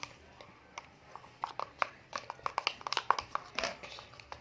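Glue and shaving foam being stirred into slime, giving quick, irregular sticky squelching clicks that grow busier after about a second and a half.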